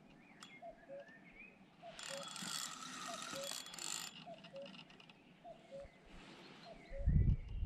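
Spinning reel's drag clicking rapidly for about two seconds as a hooked common carp pulls line off the spool on a feeder rod. A few heavy low thumps come near the end.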